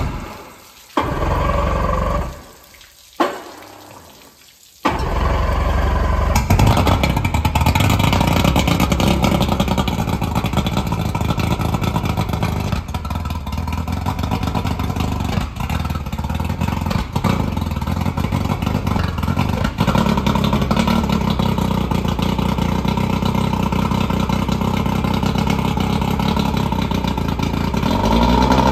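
Outboard motor cranked in short bursts that catch about five seconds in, after which it runs steadily on the flushing hose, with water spraying from the lower unit.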